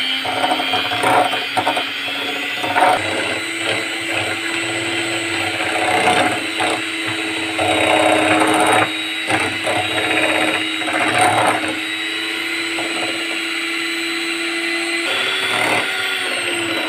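Electric hand mixer running steadily, its beaters whipping a thick cream cheese and cream mixture with a constant motor whine and irregular clatter against the glass bowl. The whine shifts slightly in pitch near the end.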